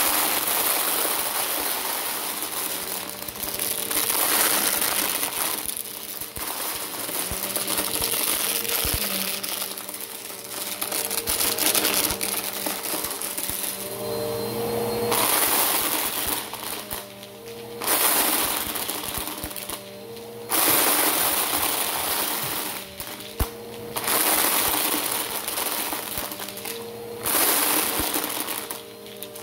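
Bissell Power Force Helix upright vacuum running on carpet and sucking up piles of small plastic building cubes, which rattle and clatter as they are drawn into the cleaner. The motor's steady hum carries on underneath while the crunchy clatter swells and drops every few seconds as the cleaner is pushed forward and pulled back over the piles.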